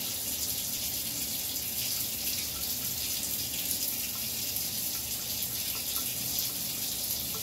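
Steady rushing noise in a small tiled bathroom, with a few faint light ticks scattered through it.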